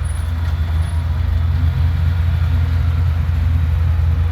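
Off-road truck engine running steadily at low revs, a continuous deep rumble with no revving.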